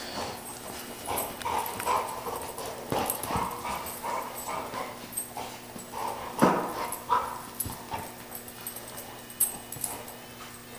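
A golden retriever puppy and a black dog playing, making scattered short dog vocal sounds; the loudest comes about six and a half seconds in.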